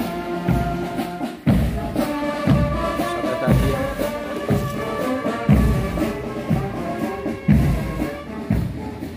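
Marching band playing a tune over drums, with a heavy drum stroke on the beat about once a second.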